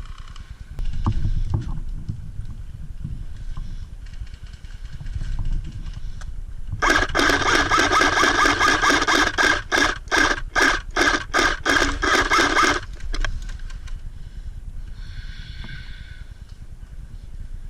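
Airsoft electric gun firing on full auto: a long burst about seven seconds in, then a quick string of short bursts, the gearbox whining under the rapid cycling of shots.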